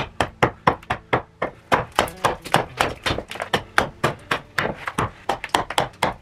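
Small carving hatchet chopping a wooden kuksa blank held on a chopping block: quick, even strokes, about four a second, each a sharp woody chop as chips come off.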